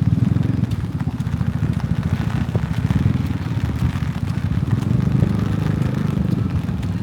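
Strong sea wind buffeting the microphone, a loud, choppy low rumble, with a fainter hiss of rain or surf above it.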